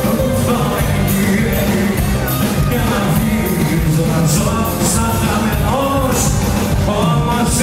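Loud live music played over a club sound system, with a steady beat and a voice singing the melody, heard from among the crowd.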